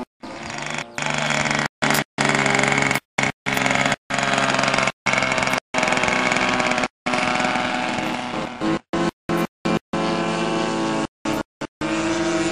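Radio-controlled model airplane engine running, its pitch rising over the last few seconds as a model takes off. The sound repeatedly cuts out to silence for split seconds.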